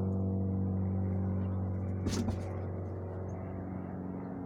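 Ambient background music: a low sustained drone chord held steadily, with a brief knock about two seconds in.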